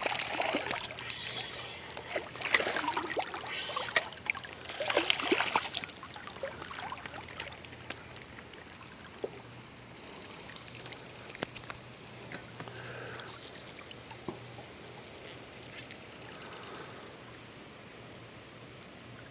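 Water splashing in several bursts with sharp clicks over the first six seconds as a small rainbow trout is landed and handled in the river, then a quieter steady rush of flowing river water.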